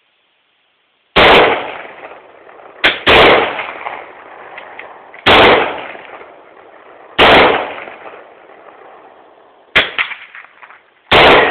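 Vz. 52/57 rifle in 7.62x39 fired five times at a slow semi-automatic pace, about two seconds apart, each loud shot trailing off in echo. Two shorter, sharper cracks come in between, one just before the second shot and one just before the last.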